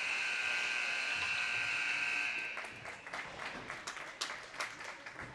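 Ice hockey arena horn sounding one steady blast of nearly three seconds, then cutting off, typical of the horn that ends a period. Sharp knocks and clacks follow, as of sticks and pucks on the ice and boards.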